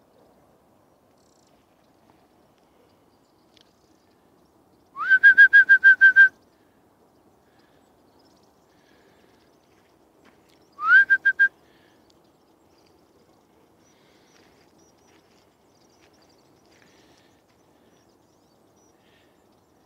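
Two bursts of a whistled, bird-like call. Each starts with a quick rising note and runs into a rapid string of short notes at one steady pitch: about seven notes over a second, about five seconds in, and a shorter run of four about eleven seconds in.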